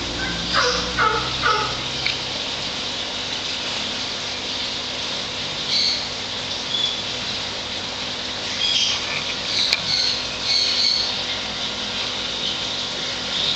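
Steady hum and rush of water from a large aquarium's filter pump. Over it come chirping calls: three quick falling calls about half a second in, then short high chirps around six seconds and again around ten seconds.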